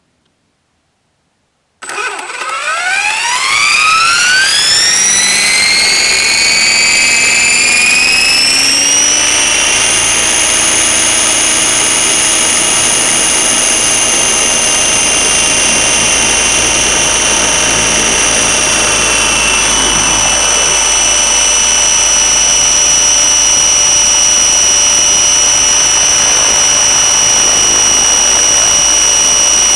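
Thunder Tiger Raptor E550 electric RC helicopter spooling up: about two seconds in, its motor and rotor gearing start a whine that rises steadily in pitch for about eight seconds, then holds a steady pitch as the rotor reaches speed and the helicopter lifts off.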